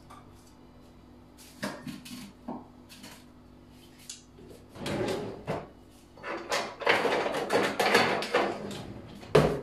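Kitchen items being handled on a counter: scattered clicks and knocks of bottles and containers, then a longer stretch of busy handling noise, and one sharp loud knock near the end.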